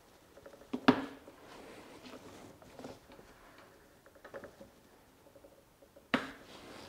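Tire levers working the bead of a new Heidenau K28 tire onto a spoked motorcycle rim by hand: faint scraping and small clicks, with two sharp knocks, the louder one about a second in and another near the end.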